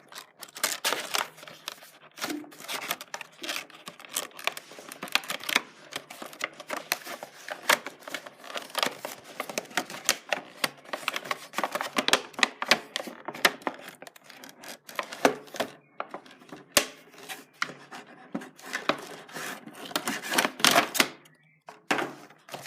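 A toy watch's packaging being opened and handled: a long run of rapid, irregular clicks and rustles, with a short lull near the end.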